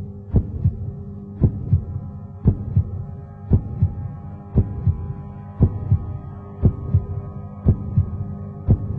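Soundtrack of a slow heartbeat-like double thump, a strong beat and a weaker one close behind, repeating about once a second over a steady droning hum.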